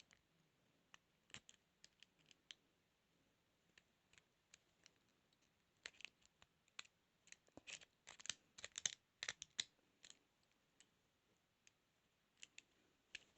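Faint, irregular metal clicks and scratches of lock picks working inside a 32mm padlock, a few scattered at first, then a dense flurry in the middle.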